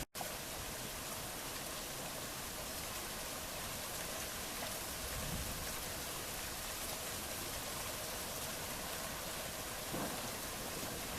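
Steady rain falling during a thunderstorm, an even hiss, with faint low swells of distant thunder now and then.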